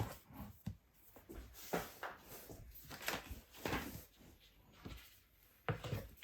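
Irregular knocks and clicks of flat-pack chest-of-drawers parts being handled and fitted together.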